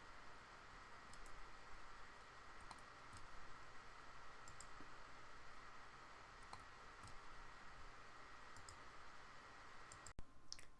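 Near silence: faint room hiss with a few scattered, faint computer mouse clicks.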